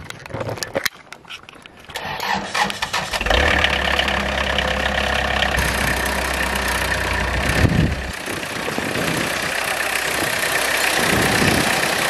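Wood-Mizer LT70 sawmill's engine starting about two seconds in and running. A heavier low drone from about three to eight seconds comes as the saw head is driven along the mill frame, and the engine runs on more lightly after that.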